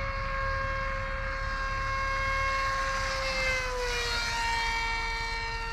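Radio-controlled model airplane's motor and propeller giving a steady whine. About three and a half seconds in, the pitch drops a little as the plane passes low down the field.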